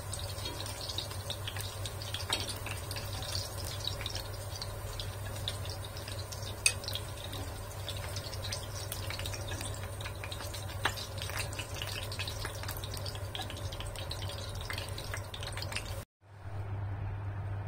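Fine, dense crackling of freshly fried pork pieces being laid in a glass dish, over a steady low hum, with a sharper click about seven seconds in. The sound drops out for a moment near the end.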